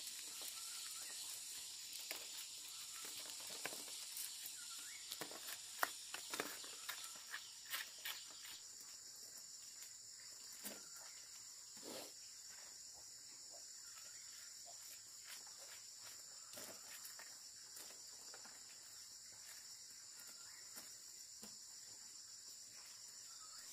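Insects chirring steadily in a high, even band, with scattered light knocks and clicks, most of them in the first half and the loudest about six seconds in.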